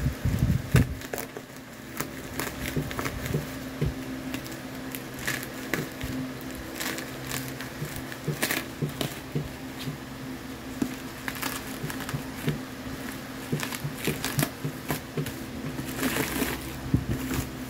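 Woven plastic sack and bubble wrap being pulled and torn open by hand: a run of short, irregular crinkling and scratchy rustles, with a steady low hum underneath.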